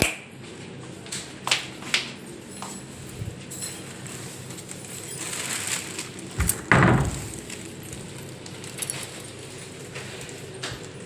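Clicks and knocks of a wooden door being handled and opened, with a louder thump a little past halfway.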